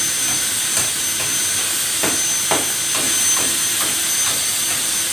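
Electric angle grinder with a cut-off disc cutting into a truck's sheet-metal fender: a steady high whine and hiss, with short irregular rasps as the disc bites into the metal.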